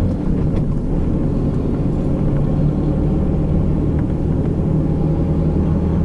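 Steady low drone of a cargo van's engine heard from inside the cab.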